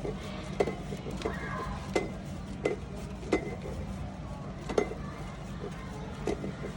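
Sharp metallic clinks and taps, about one a second, over a steady low hum.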